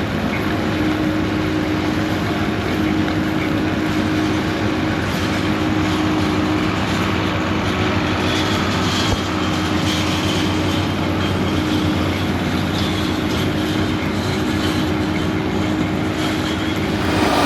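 Heavy diesel machinery running steadily, a constant engine drone with no change in pace.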